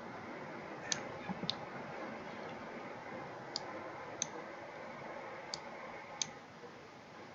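Computer mouse clicking about six times at uneven intervals over a steady low hiss.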